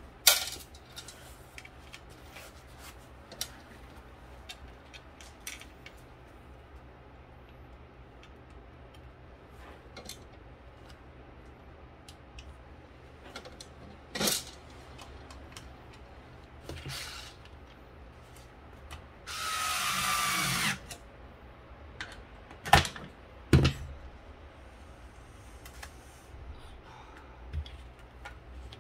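Scattered clicks and knocks of small parts being handled during printhead reassembly. About two-thirds in, a small power tool runs for about a second and a half, followed by two sharp knocks.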